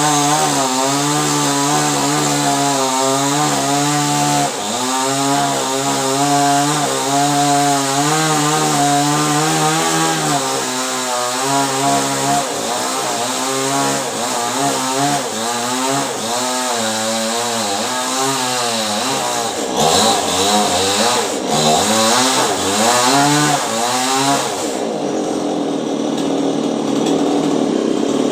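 Two-stroke chainsaw running and cutting coconut wood. The engine's pitch rises and falls as it works, then turns lower and duller near the end.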